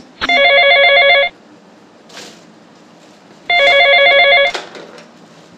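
Corded desk telephone ringing with a rapidly pulsing electronic trill: two rings, each about a second long and a few seconds apart. The second ring stops with a click as the handset is lifted.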